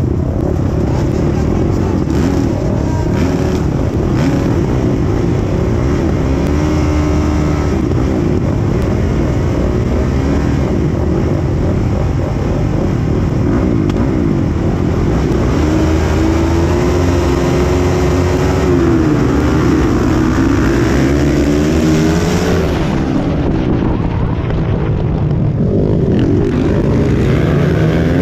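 Dirt-track racing motorcycle engines heard on board, a grid of bikes revving with pitch rising and falling. In the second half the bikes run hard at full throttle as the race gets under way.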